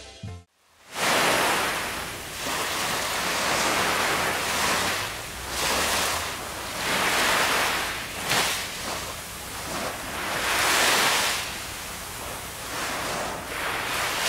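Ocean surf washing up on a sandy beach. It starts about a second in, and the hiss of the waves swells and falls away in slow surges every two to three seconds.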